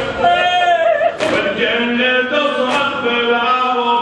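Male voices singing a Shia mourning chant (raddadiya) in a sustained, melodic line, with a sharp strike about every second and a half, which in this kind of chant is typically mourners beating their chests in time.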